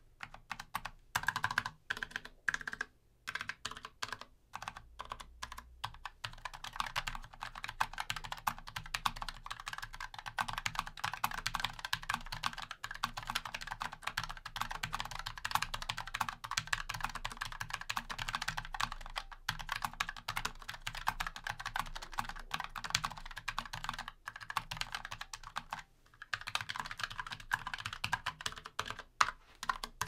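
Fnatic Streak 65 LP low-profile mechanical keyboard being typed on, foam added inside its case, giving a solid sound. A few scattered keystrokes at first, then fast continuous typing with a short pause near the end.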